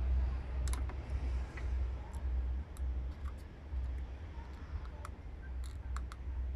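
Irregular light clicks from copper magnet wire being pressed along a transformer bobbin by hand, closing gaps between turns, over a low steady rumble.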